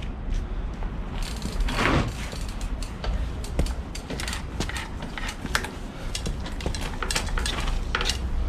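Scott Gambler downhill mountain bike being worked to show its suspension and brakes: irregular clicks, knocks and rattles from the bike over a low rumble, with a louder rushing noise about two seconds in.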